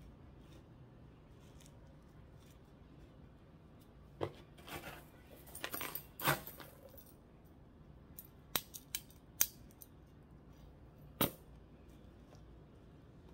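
Gritty succulent potting mix being scooped and pressed around a plant by hand and with a small metal tool: a few short grainy scrapes partway through, then several sharp clicks of grit and metal.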